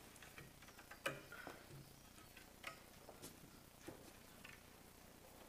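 Faint scattered ticks and light scraping as old cured silicon is picked and scraped off the edge of a glass window pane.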